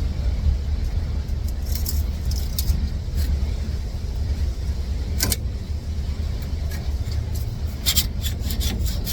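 Steel chisel scraping and clicking against the truck's rear differential housing, chipping old sealant off the cover mating surface in short, irregular strokes that come in clusters, over a steady low rumble.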